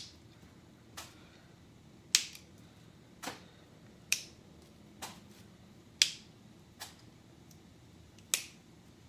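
Fresh asparagus spears snapped by hand, breaking off the woody bottom ends where they naturally break: about eight short, crisp snaps, roughly one a second.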